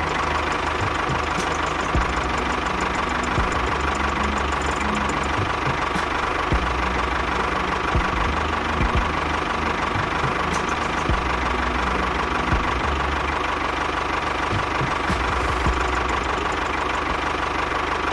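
Tractor engine running steadily at an even pace.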